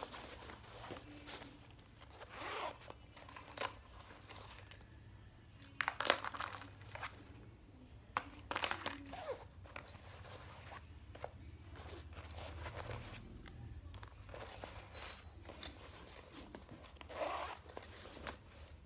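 Rustling and crinkling of a thin nylon crossbody bag being handled and opened, with a few louder bursts of fabric and zipper noise, over a faint low steady hum.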